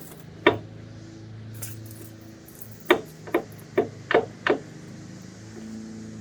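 Sharp knocks: one about half a second in, then a quick run of five from about three seconds, over a low steady hum.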